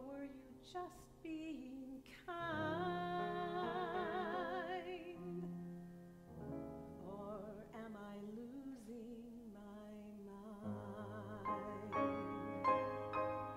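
A woman singing in an operatic classical style with wide vibrato, accompanied by grand piano. She holds one long note a couple of seconds in. Near the end the piano takes over with repeated struck chords.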